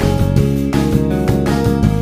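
Background music with a steady beat and plucked, guitar-like notes.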